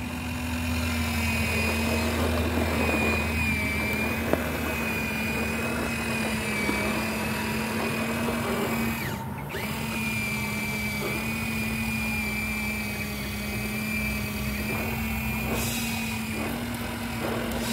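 Electric motor and gearbox of a scale RC crawler truck whining steadily as it crawls over dirt and roots, with a brief drop in the whine about nine seconds in.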